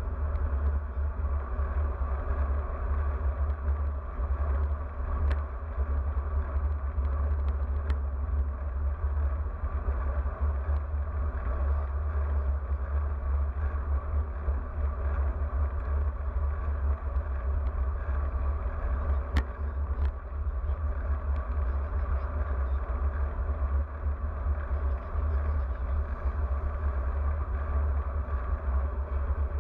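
Steady wind rumble buffeting the action camera's microphone as a road bike rides at speed, with a few faint clicks.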